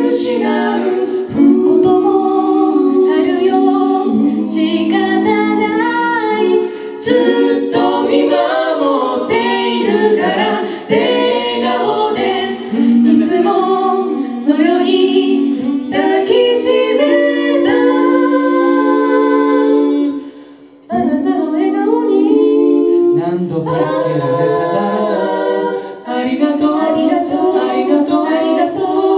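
Four-part a cappella singing by two men and two women into microphones, close vocal harmony with no instruments. The voices break off for a moment about twenty seconds in, then come back in.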